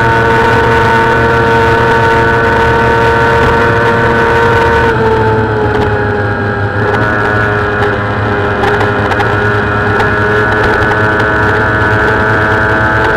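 Kawasaki ZX-6R inline-four race engine running at high revs under load, with a steady rush of wind. About five seconds in the note dips as the throttle is eased, then climbs back up over the following seconds.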